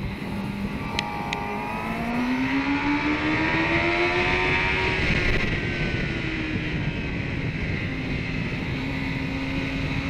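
Kawasaki ZX-10R's inline-four engine pulling hard, its pitch rising for several seconds, dropping back about halfway, then climbing again near the end, over a steady rush of wind noise. Two sharp clicks come about a second in.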